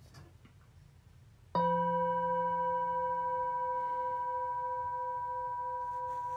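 Large hand-hammered singing bowl struck once about a second and a half in, then ringing on with a slowly fading tone that wavers gently.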